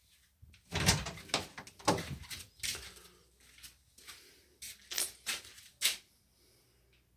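A door being opened, followed by a string of irregular knocks and thumps, the heaviest about a second in.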